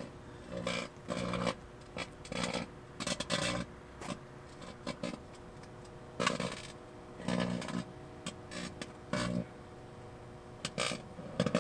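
Microwave oven running with a steady hum, broken by short, irregular buzzing and crackling bursts every half second to a second: arcing and flaring from the five lithium-ion phone batteries inside as they burn.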